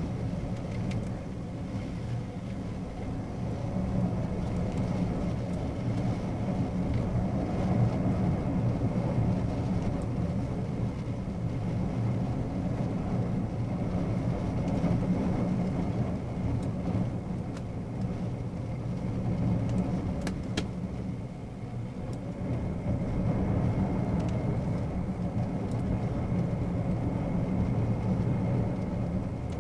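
Storm-force wind rushing around a cruise ship, swelling and easing every few seconds over a low steady rumble.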